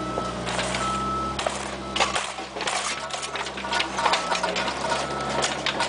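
Mini excavator's diesel engine running steadily while it digs, with a thin high whine that comes and goes and scattered clanks and scrapes of the bucket working rocky soil.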